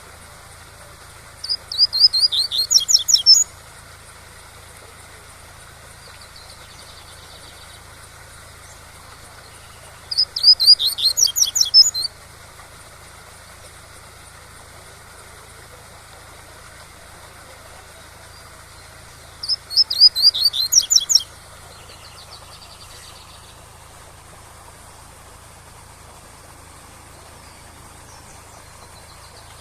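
Double-collared seedeater (coleiro) singing its 'tui-tui' song: three phrases of rapid, high repeated notes, each about two seconds long and roughly nine seconds apart, over the steady rush of a waterfall.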